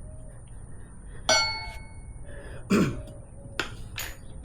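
Metal tire levers clinking and ringing against the wheel rim while a motorcycle tire is worked onto it by hand: two sharp metallic strikes with a short ring, about a second and a half apart, then lighter clicks near the end.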